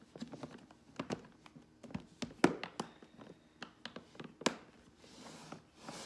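A hard plastic makeup case being handled and shifted, giving scattered clicks and knocks. The two loudest come about two and a half and four and a half seconds in.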